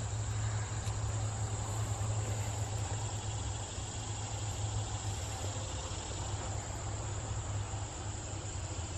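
Steady outdoor chorus of insects, crickets or similar, chirring continuously in the garden, over a low steady hum.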